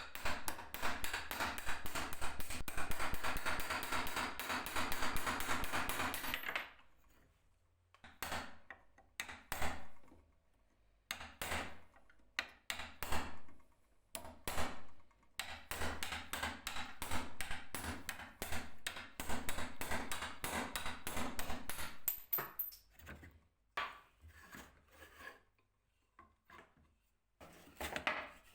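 Hand tools working on wooden stool parts: a fast run of rapid repeated strokes for about six seconds, then intermittent short strokes and knocks in separate bursts.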